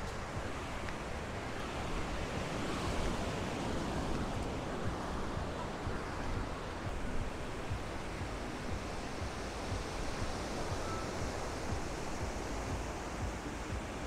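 Ocean surf breaking and washing up the beach: a steady rush of waves that swells slightly a few seconds in.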